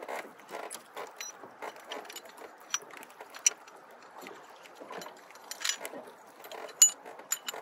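A small boat anchor and its chain clinking as the anchor line is hauled up by hand, with a few sharp metallic clinks, the loudest near the end. Waves lap against the small boat's hull throughout.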